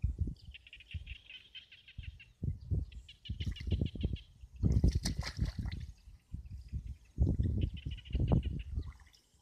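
Hands splashing and squelching in shallow muddy water in several separate bursts while groping for fish in the mud. A bird's rapid, chattering calls come three times over it.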